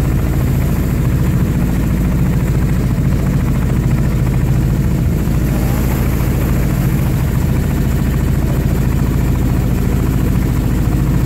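Boat engine running steadily at cruising speed from aboard the boat, a low even drone with a fast regular pulse.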